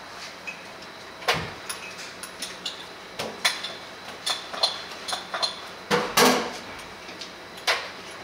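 Dishes and cutlery clinking and knocking: irregular sharp clicks and taps, some with a light ring, loudest in a cluster about six seconds in.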